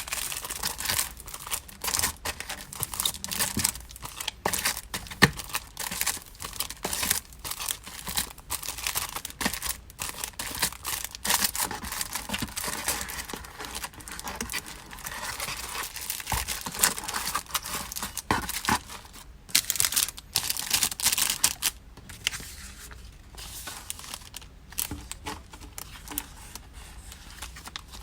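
Packaging being handled by hand in a dense, irregular run of crinkling, rustling and small taps as an order is packed. It thins out over the last few seconds.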